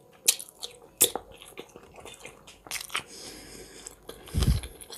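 Close-miked eating of hot-smoked red sea perch: chewing with several sharp, crunchy clicks, and a dull low thump near the end.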